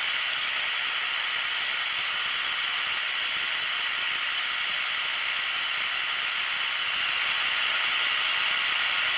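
Milling machine spindle running with a steady whir while a center drill is fed into a metal wheel hub.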